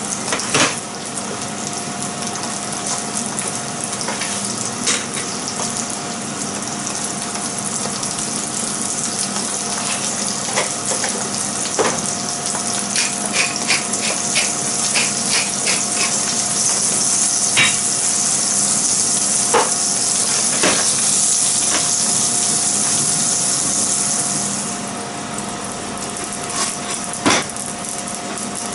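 Sea bream fillets sizzling as they fry in butter in a nonstick frying pan, with scattered pops and clicks. The sizzle grows louder through the middle and drops back about three-quarters of the way in, over a faint steady hum.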